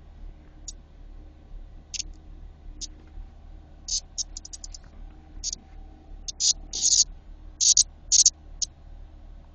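Brood XIX periodical cicada held in the hand, giving short, harsh high-pitched distress buzzes in irregular bursts, some in quick runs of several, louder toward the end: the insect's protest call at being held.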